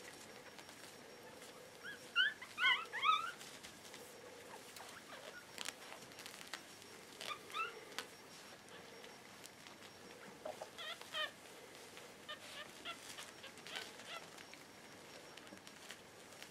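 Newborn puppies, five days old, squeaking in short, high, rising cheeps: a loud cluster about two seconds in, then fainter bursts a few more times.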